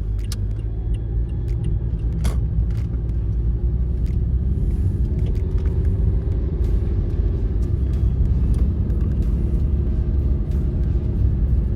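Car driving, heard from inside the cabin: a steady low road and engine rumble, with the engine note rising a little as the car picks up speed a few seconds in. A couple of light clicks come near the start.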